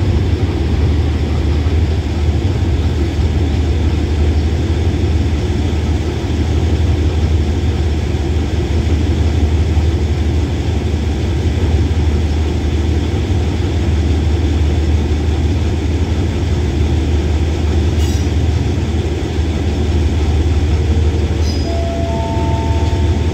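Diesel locomotive idling close by with a steady low engine rumble. Near the end, a short chime of three rising notes sounds over it.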